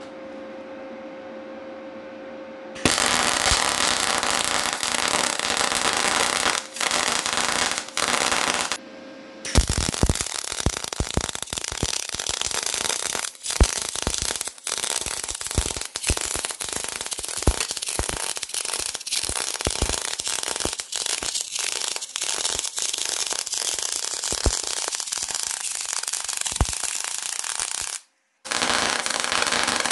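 MIG welding arc crackling and spitting in three runs: the first starts about three seconds in, it breaks off briefly near nine seconds, and stops again shortly before the end, then restarts. Before the first strike there is a steady electric hum with a single tone.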